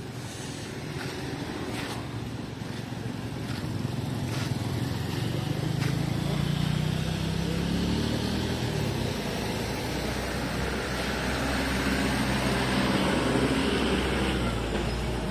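Road traffic: a vehicle's engine and tyres grow louder and pass, and a second vehicle passes near the end. A few light knocks come in the first few seconds.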